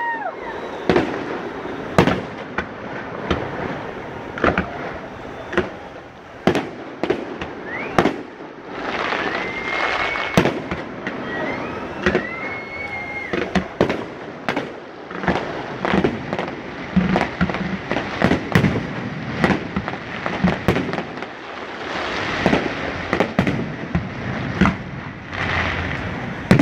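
Aerial fireworks display: a steady run of sharp bangs from bursting shells, with crackling between them and a few short whistling tones about ten and twelve seconds in.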